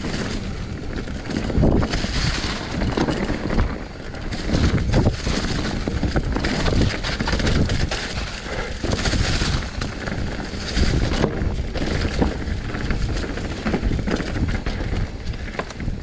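Mountain bike riding fast down a dirt trail covered in dry leaves: tyres rushing and crackling through the leaves, with frequent knocks and clatter from the bike over bumps and wind on the microphone.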